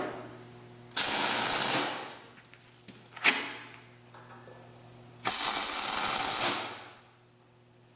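Two tack welds on steel bracket pieces, each about a second of loud, crackling arc noise that tails off, with a short sharp click between them.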